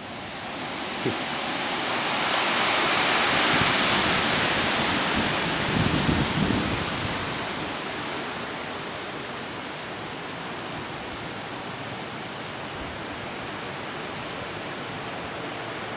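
Strong wind gust rushing, swelling over the first few seconds and then easing to a steady rush, with a few low thumps around six seconds in. It is the gusty wind of an arriving cold front.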